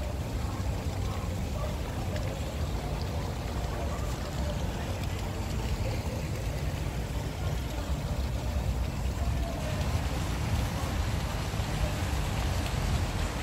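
Small fountain jets splashing steadily into a cascade of shallow pools, over a low steady rumble.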